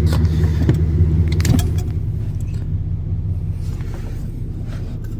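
Chevy S10's engine idling steadily, with a few light clicks. No engine whine comes through the car's audio system, which the owner credits to a new cable on the amplifier.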